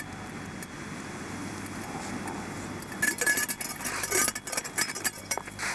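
Steady hiss, then from about three seconds in a quick, irregular run of bright metallic clinks and jangles.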